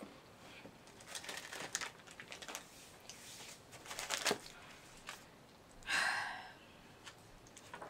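Snack packaging being handled, crinkling and rustling in short bursts, with a light click about four seconds in and a longer rustle about six seconds in.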